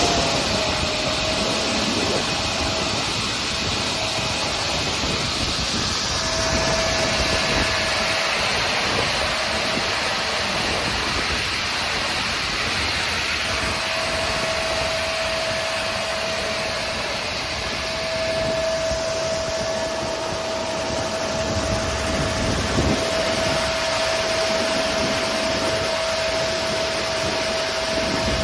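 Raimann crawler-feed multi-rip saw running, its 37 kW main motor driving the saw blades with a steady mechanical noise. A thin whine runs through it, dropping out and coming back several times.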